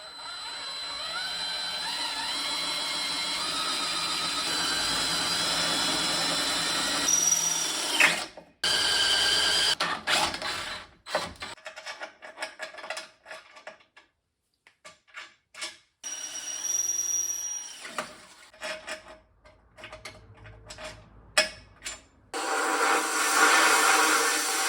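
Power drill running under load for about eight seconds, its pitch slowly rising, then stopping; after that come short bursts, clicks and another brief run, with a harsh rubbing, scraping noise near the end. These are the sounds of drilling and fitting the mounting brackets for a front-mount intercooler.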